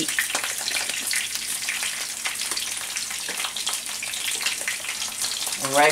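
Sweet Italian sausages frying in oil in a skillet: a steady sizzle with many small crackling pops.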